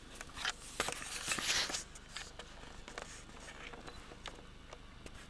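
Close rustling and clicking near the microphone, a cluster of louder rustles in the first two seconds, then only scattered faint clicks.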